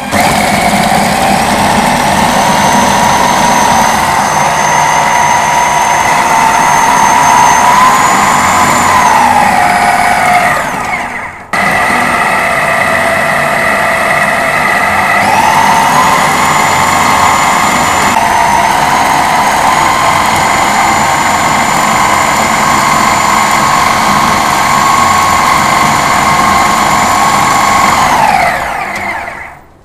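Philips food processor motor running at high speed, grinding fried potatoes and seasonings into a mash. Its whine steps up in pitch and then drops as the speed dial is turned. It cuts off briefly about eleven seconds in, then runs again, rises in pitch, and winds down near the end as it is switched off.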